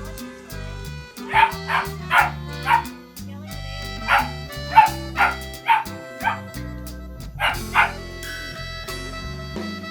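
A dog barking in three quick runs of short barks, about a dozen in all, over background music.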